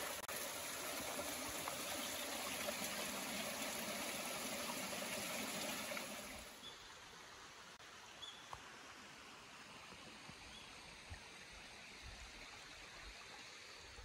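Running water of a small stream, an even rushing hiss that cuts off abruptly about six seconds in, leaving a much quieter outdoor ambience with a few faint bird chirps.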